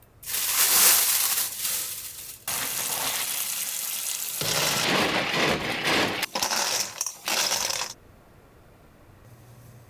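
Cockle shells clattering against each other and a stainless-steel bowl as they are shaken and scrubbed by hand. From about two and a half seconds in, tap water runs into the bowl, and everything stops about eight seconds in.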